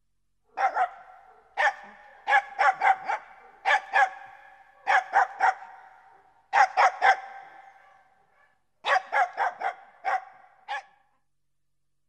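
A dog barking in quick runs of two to four barks, with short pauses between runs; each run leaves a short echoing tail.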